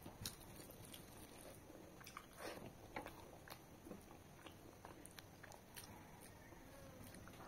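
Faint eating sounds: chewing, with scattered soft clicks and squishes of fingers mixing rice and mutton gravy on a banana leaf.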